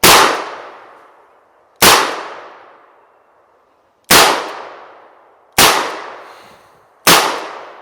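Chiappa Rhino 60DS .357 Magnum revolver firing five shots at an unhurried pace, about one and a half to two seconds apart. Each shot is loud and sharp and trails off slowly.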